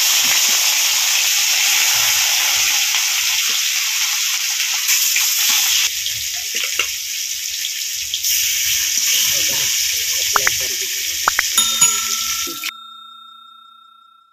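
Rohu fish steaks, rubbed with salt and turmeric, sizzling loudly in hot oil in an iron karahi, with a few sharp clicks near the end. The sizzle cuts off suddenly, and a steady electronic ding tone from a subscribe-button overlay rings on to the end.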